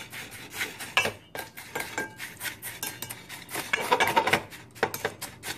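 Wooden spoon stirring a panko breadcrumb mixture in a stainless steel mixing bowl: irregular knocks and scrapes against the side of the bowl, busiest about four seconds in.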